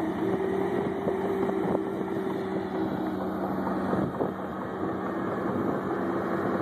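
Komatsu D65PX crawler dozer's diesel engine running steadily under load, heard from a distance, with a few faint knocks from the tracks.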